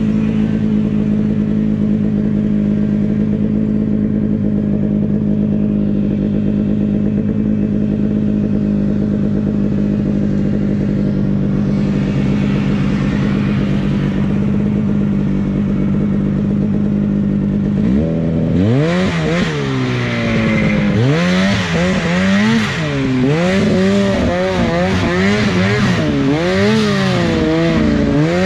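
Ski-Doo Summit 800 snowmobile's two-stroke engine heard from the rider's seat, holding one steady note for a long stretch. Then the throttle is worked on and off over and over, and the engine pitch swings up and down.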